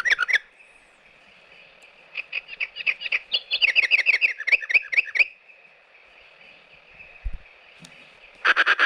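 Recorded birdsong from the Timex T234S clock radio's bird nature sound, played through its small speaker: two runs of rapid chirping with a pause and a faint hiss between them. Near the end the clock's standard alarm buzzer starts beeping.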